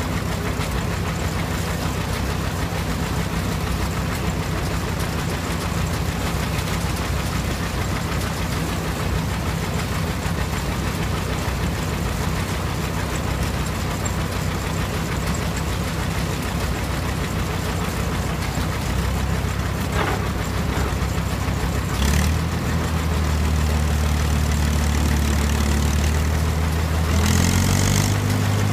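A John Deere tractor engine running steadily while it drives a belted corn husker. About two-thirds of the way through, a sharp knock comes and the engine note deepens and grows louder. Near the end the engine speed rises.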